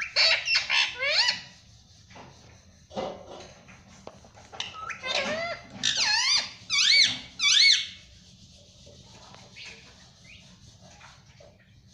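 Indian ringneck parrot giving short, shrill, pitch-sweeping calls in two bursts, one at the start and another from about five to eight seconds in, with a few softer calls between and after.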